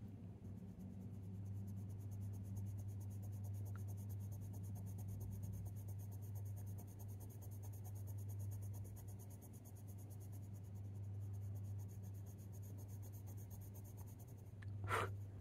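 Faber-Castell Polychromos coloured pencil scratching in light, repeated strokes on hot-pressed watercolour paper, over a steady low hum. One brief, louder scrape comes near the end.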